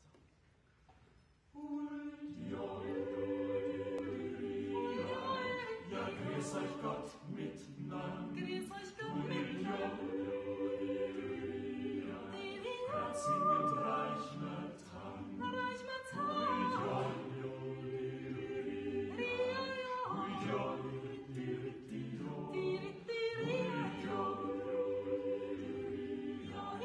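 Mixed choir of women's and men's voices singing a cappella, a choral yodel in several parts, starting about a second and a half in.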